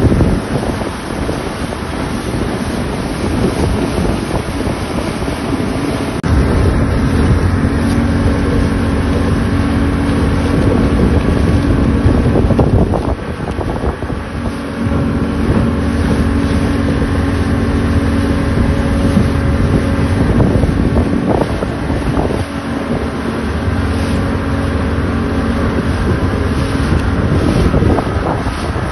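Yamaha 200 outboard motor running at speed as it tows an inflatable raft, with wind buffeting the microphone and the rush of the wake. The engine hum grows stronger about six seconds in and eases off briefly twice.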